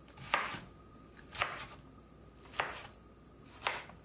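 Chef's knife chopping peppers on a plastic cutting board: four chops, about one a second, each a sharp knock of the blade on the board.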